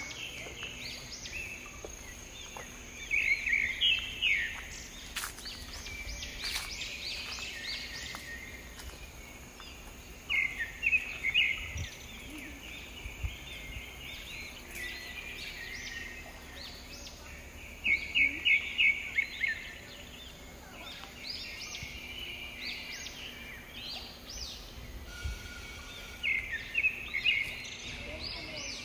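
Forest birds singing, with bursts of quick repeated chirps every several seconds, over a faint steady high whine.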